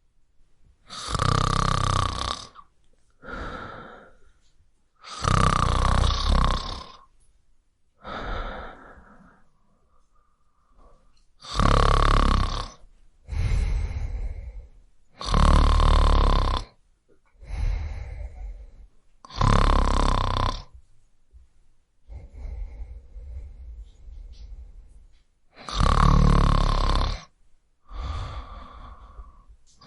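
A man snoring loudly: a loud snore about every four seconds, each followed by a softer breath, with a longer, quieter gap a little past the middle.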